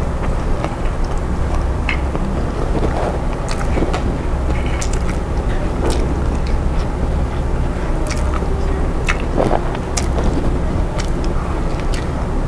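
Close-miked eating sounds: fingers tearing fried catfish, then a mouthful of catfish and rice being chewed with scattered wet clicks and smacks. A steady low hum runs underneath.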